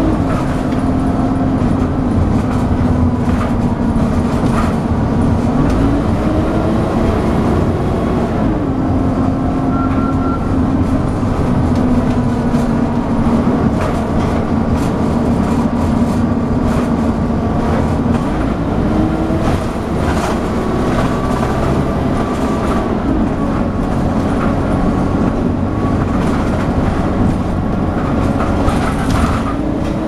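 Dennis Dart SLF bus heard from inside the saloon, its engine running hard under way with a whine that climbs and drops in pitch a few times as it accelerates and changes gear. Road noise and frequent body rattles run underneath.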